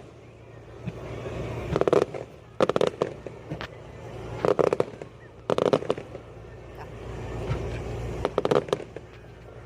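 Fireworks going off: about five volleys of sharp bangs, each a quick cluster of pops, spaced a second or two apart.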